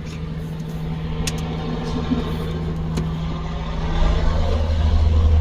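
Power-folding rear seat's electric motor and gearbox running after a Stow command: a steady hum that grows louder and deeper about four seconds in.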